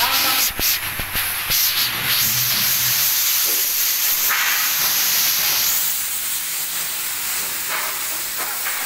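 A steady, loud hiss, with a few sharp clicks in the first two seconds.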